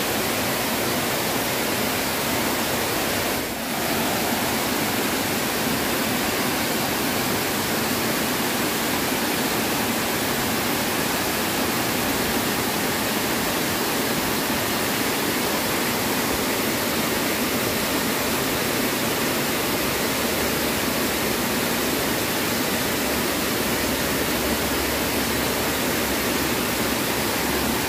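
Water pouring over a small river weir into the pool below: a steady rushing sound that dips briefly about three and a half seconds in.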